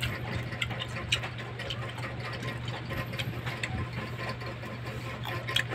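Mouth noises of biting into and chewing grapes: scattered short clicks and smacks. A steady low hum runs underneath throughout.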